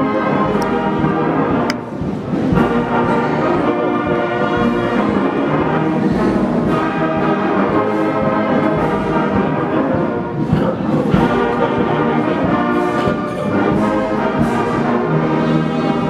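A brass ensemble playing a slow piece of long, held chords.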